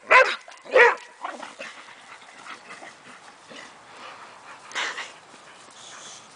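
Boxer dog barking twice in quick succession at the start, with a fainter bark just after.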